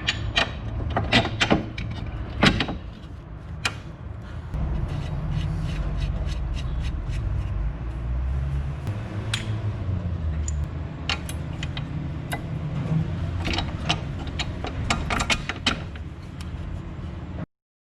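Metal tools and car suspension parts clinking and knocking at irregular intervals, over a low steady rumble. The sound cuts off abruptly near the end.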